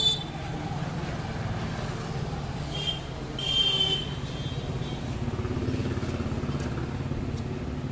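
A motor vehicle engine runs with a steady low rumble, with a short high-pitched beep about three and a half seconds in.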